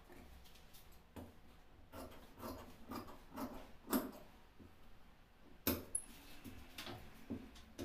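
Large tailor's shears snipping through shirt fabric on a cutting table: a run of uneven snips, the loudest about four seconds in, then a few sharper clicks of the blades.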